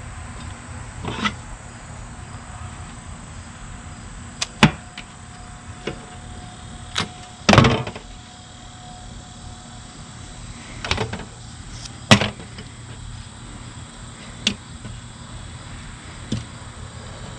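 Scattered short knocks and clicks, about ten in all with the loudest near the middle, as quail are skinned and handled on a work table, over a steady low background rumble.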